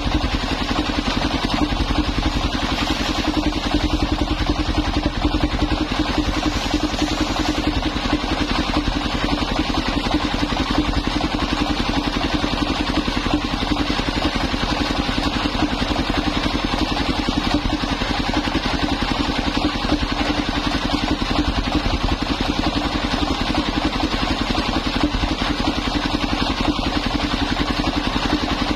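Engine-driven mobile circular sawmill running steadily under load, its circular blade ripping old coconut-wood planks into boards.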